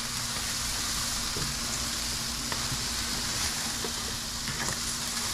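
Chicken leg quarters sizzling on the grate of a hot charcoal grill cooking over direct heat: a steady sizzle with a few faint crackles.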